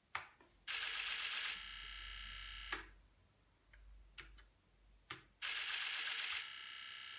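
The relays of a homebuilt relay computer clatter rapidly as it steps through its fetch-and-increment cycle at a 32 Hz clock, 64 ticks a second, so fast that the clicks run together into a buzz. This comes in two bursts of about two seconds each, with a few single clicks between them.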